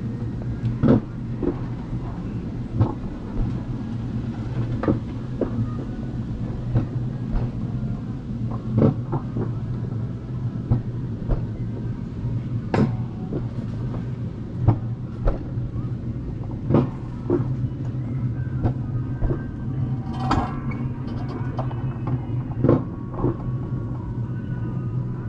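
Wiegand alpine coaster sled being hauled up the lift track: a steady low rumble from the wheels on the rails and the lift drive, with sharp clicks every second or two.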